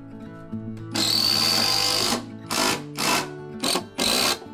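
A cordless impact driver runs into the wooden deck beam in one burst of just over a second, then three short bursts. Soft guitar background music plays underneath.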